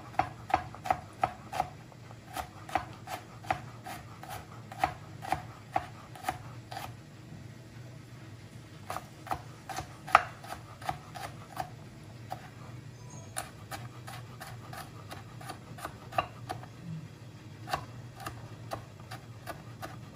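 Kitchen knife slicing a carrot into thin strips on a plastic chopping board: quick, regular knocks about three a second, pausing briefly near the middle and then resuming more unevenly, over a steady low hum.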